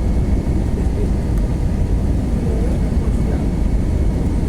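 Cabin noise of an Airbus A321 heard from a window seat: a steady low rumble of the engines and airflow.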